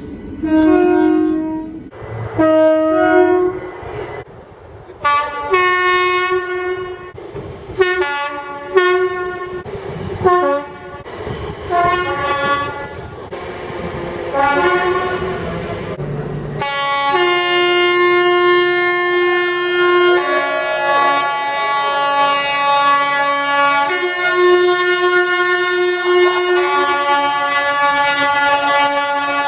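Train horns sounding. The first half is a rapid series of short one- and two-note blasts; about halfway through, a long continuous multi-note horn chord begins and holds, its notes shifting a few times.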